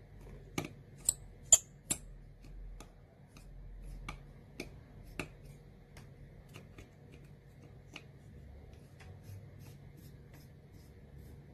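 Small metallic clicks and taps of tiny screws being set and driven into an iPhone X's internal metal brackets with a precision screwdriver. The sharpest clicks, a few with a brief high metallic ring, come about one to two seconds in, followed by scattered lighter ticks.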